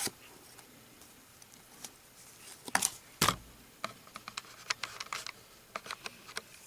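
Trading cards being handled and turned over, a series of light clicks and snaps, with two louder snaps near the middle and quicker small ticks after.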